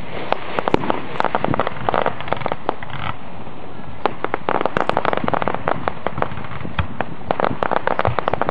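Aerial fireworks bursting overhead: sharp bangs and clusters of many rapid pops, coming in bunches every few seconds.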